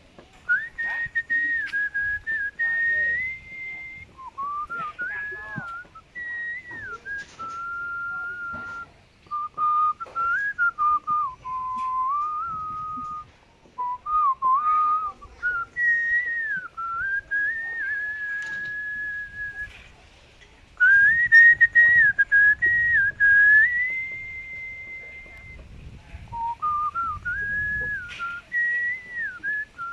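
A person whistling a tune: one clear pitch moving between held notes and short slides, in phrases with brief pauses between them.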